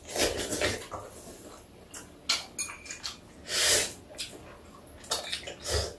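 Cold spicy bibim noodles being slurped and chewed: a run of short, noisy slurps, the longest about three and a half seconds in.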